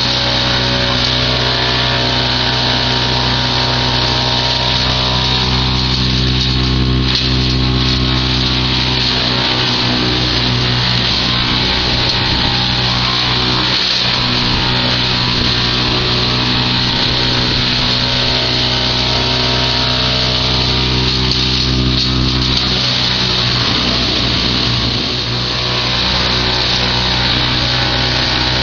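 Tractor-driven branch chipper running steadily off a Fendt 920 Vario tractor, engine and chipper making one loud continuous drone that dips briefly a few times.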